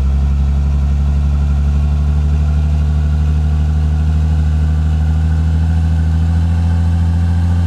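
Truck engine running at a steady low drone, its pitch holding even throughout.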